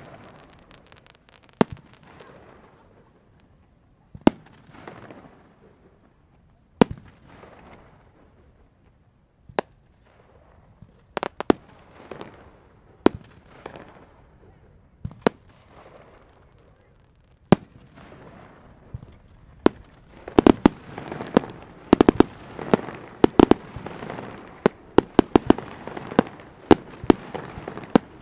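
Aerial fireworks bursting overhead: single sharp booms every second or two, each trailing off in a fading rumble. About two-thirds of the way through they thicken into a rapid barrage of many bursts close together.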